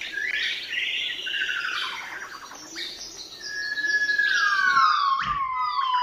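Forest wildlife calling: many overlapping whistled, sliding calls. About halfway through, a long falling whistle levels off and holds one pitch.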